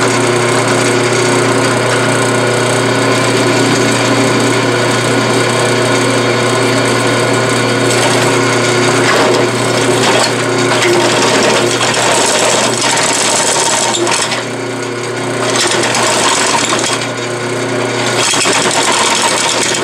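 Drill press running with a step drill cutting through the steel of a lower control arm without a pilot hole: a steady motor hum under a loud grinding, scraping cut. The cutting eases off briefly twice near the end.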